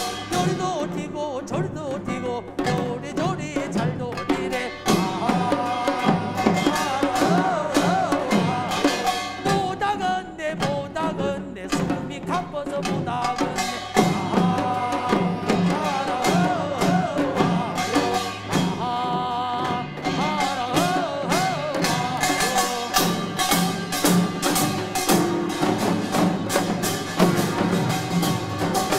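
Korean farmers' band (pungmul) playing: kkwaenggwari small gongs, janggu hourglass drums and buk barrel drums beating a fast, dense rhythm, with voices singing a folk field song over it. The percussion thickens into a busier beat in the last third.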